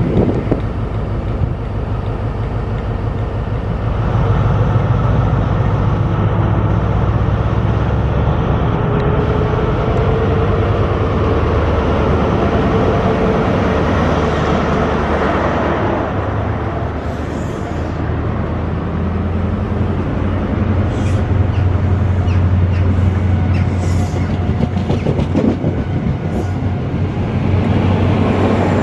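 Diesel engines of a Class 43 HST power car set, MTU 16V4000 units, running under power as the train moves along the platform close by. There is a steady deep engine hum, strongest near the end as the rear power car comes alongside, with faint wheel clicks and squeaks in the second half.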